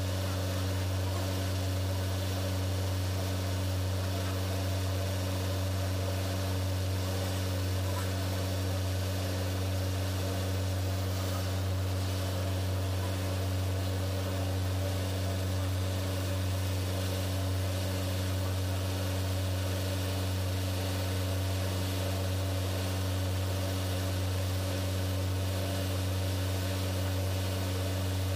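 Tugboat engine-room machinery running steadily: a constant low drone with a few fixed tones above it, unchanging throughout.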